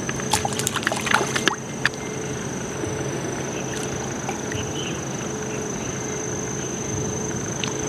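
A hooked carp thrashing at the water surface: a run of sharp splashes in the first second and a half, then quieter water movement over a steady background hiss with a thin high whine.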